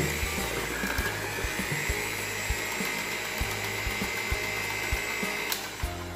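Electric hand mixer running in cake batter in a stainless steel bowl, a steady high whine that cuts off near the end.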